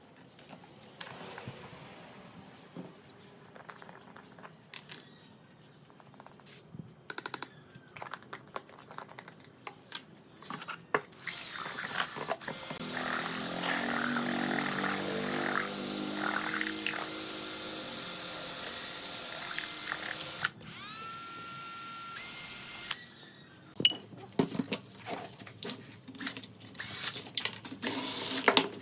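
A small handheld power tool, drill-like, runs steadily for about eight seconds, then again briefly. Before and after come scattered clicks and knocks of tools and workpieces being handled.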